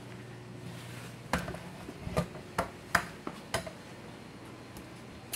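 A quick series of about six sharp knocks and clicks over roughly two seconds, with one more near the end, over a steady low hum.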